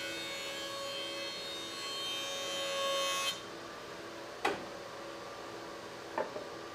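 Jointer cutterhead taking a pass along a cherry board, a dense high cutting noise that stops suddenly about three seconds in, leaving the machine's steady hum. Two sharp wooden knocks follow near the end.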